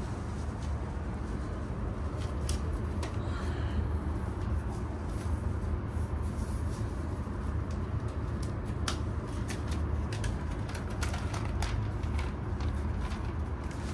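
Scattered light clicks and taps from hands handling a MacBook Air and its packaging, over a steady low rumble of distant city traffic.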